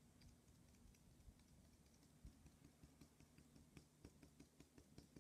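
Faint, irregular light taps of a paint-loaded cotton swab (Q-tip) dabbing dots onto paper, coming more often after about two seconds, over a faint low hum.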